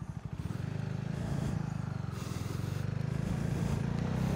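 CFMOTO 300SS sport bike's single-cylinder engine running at low revs as the motorcycle rolls off slowly, the engine note starting to pick up near the end.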